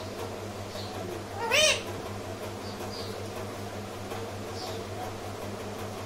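Rose-ringed parakeet giving one short, loud call that rises and falls in pitch about a second and a half in, with a couple of faint chirps later. A steady low hum runs underneath.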